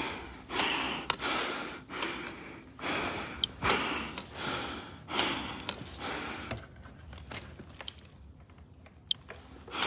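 A man breathing hard and gasping, out of breath from a long stair climb, with breaths coming about once a second and easing toward the end, and a few small clicks.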